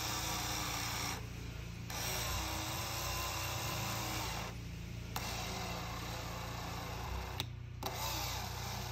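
Electric side-mirror motor of a 1984 Alfa Romeo GTV6 running as the joystick tilts the mirror glass, in four spells of a second or two each with short pauses between. The motor was seized before and now works again after being cleaned of rust and wasp debris with electrical parts cleaner.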